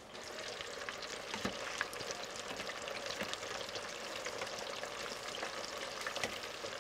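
Flour-breaded chicken pieces deep-frying in a tall pot of oil brought up to frying temperature: a steady sizzle dotted with many small crackles and pops.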